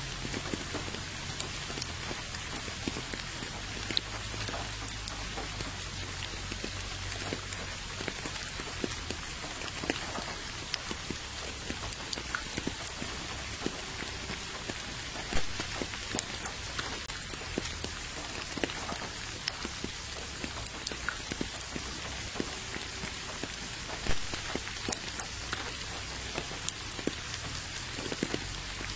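Steady rain falling on a puddle and wet ground, with many separate drops ticking and splashing. Two single drops stand out louder, about halfway through and a few seconds before the end.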